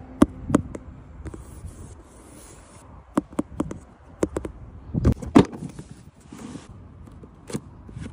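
A cardboard box being handled by hand: a scattered string of sharp taps and knocks on the box, with brief rustling.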